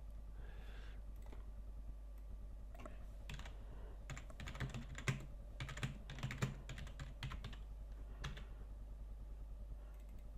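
Typing on a computer keyboard: a run of quick key clicks in the middle, over a steady low hum.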